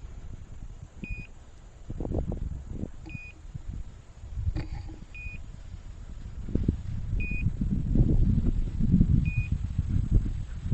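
Short high electronic beeps, five of them about two seconds apart, typical of a hunting dog's beeper collar. They sound over louder low rumbling and rustling that grows in the second half.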